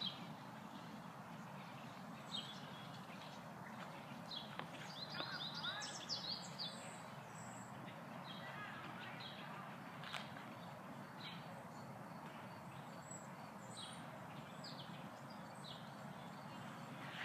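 Small birds chirping in short, scattered calls over a steady low background hum, with a quick flurry of chirps about five to seven seconds in.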